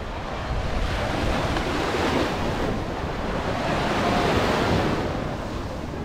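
Small surf breaking and washing up on a sandy shore, the hiss swelling and easing every couple of seconds, with wind rumbling on the microphone.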